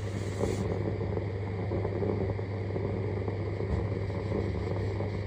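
Steady electrical hum with a dense crackling, gurgling noise, like water boiling, from the main supply cable inside its wall conduit at an electric meter box. The electrician takes it for broken cable insulation with moisture in the conduit.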